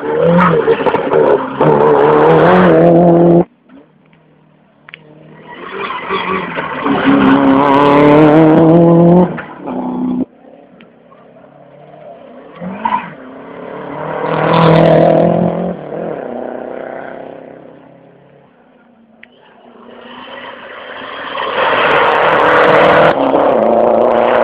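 Rally cars racing past one at a time, engines rising in pitch as they accelerate hard. Four loud passes, the sound cutting off abruptly between some of them.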